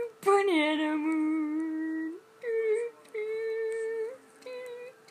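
A voice singing long wordless held notes in a tune. A loud note slides down and is held for nearly two seconds, then shorter held notes follow with brief breaks.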